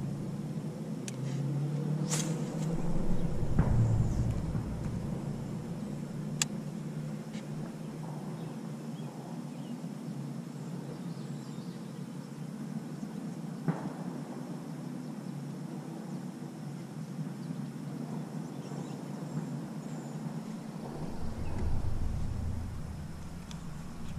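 Open-air background while an angler works a swim jig from a small aluminium boat: low rumbling in the first few seconds and again near the end, with a few single sharp clicks between.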